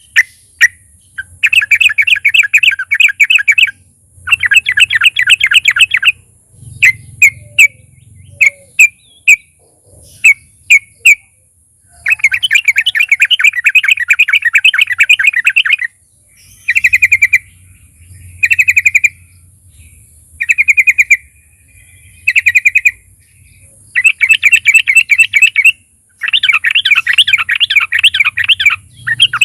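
Yellow-vented bulbul (trucukan) singing: rapid chattering trills of two to four seconds, alternating with short separate notes repeated a few times. A faint steady high hiss and low hum lie underneath.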